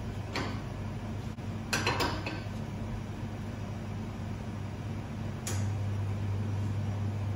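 Espresso machine being backflushed with plain water: metal clanks of the portafilter being handled and locked into the group head, then a sharp click about five and a half seconds in, after which the machine's steady hum gets louder as the pump runs.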